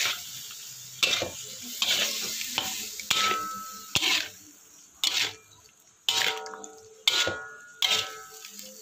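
Metal spatula scraping and knocking against a metal wok about once a second while stir-frying long beans, some strokes leaving a brief metallic ring. A light sizzle of the food and a little added water runs under the strokes.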